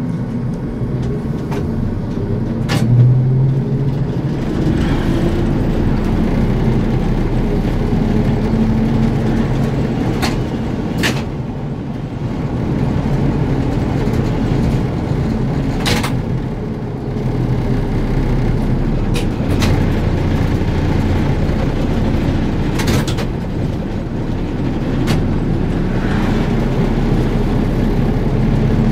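ZiU-682G trolleybus under way: a steady rumble with an electric hum from the traction motor that shifts in pitch a few times as the speed changes, and several sharp clicks and knocks along the way.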